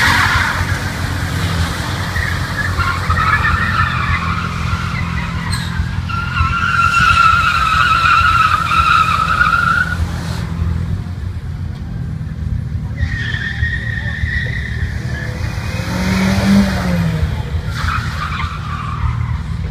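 A shrill whistle held in long stretches, a drawn-out one in the first half and two shorter ones later, over a steady low rumble.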